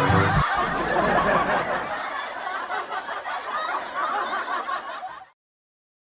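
Crowd laughter, likely a canned laugh track, following the end of a short brass musical sting; it fades over several seconds and then cuts off abruptly.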